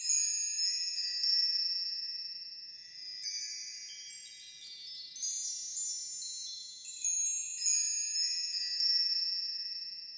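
High chimes ringing: clusters of overlapping struck notes that ring on and die away, with fresh clusters about three and seven seconds in, and the sound fading near the end.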